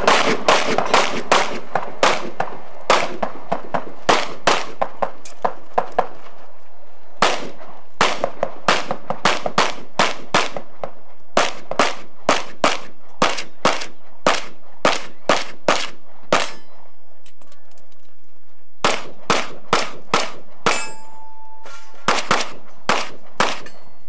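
Pistol fired in fast strings of about three to four shots a second, with pauses of one to two and a half seconds between strings; steel targets clang when hit.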